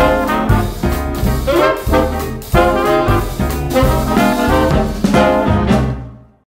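Upbeat swing-style background music with brass and a steady beat, fading out near the end.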